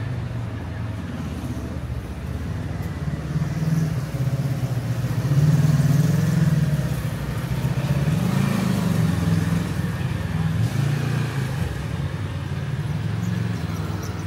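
Motor vehicle engines running close by, with a steady low hum that grows louder in the middle; one engine's pitch rises and falls about eight seconds in.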